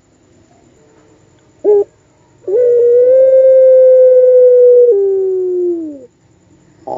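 Puter pelung turtle-dove calling: a short note, then one long drawn-out call held level for a couple of seconds that steps down in pitch and slides lower before breaking off. Another short note starts at the very end.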